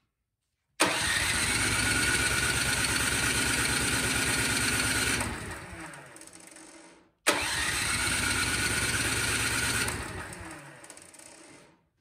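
Toro Power Max snowblower's plug-in electric starter cranking the engine on full choke in two long bursts of about four and a half seconds each, each spinning down after the button is released; the engine never fires. With good spark from a fresh plug, the no-start points to a carburetor problem, as the mechanic suspects.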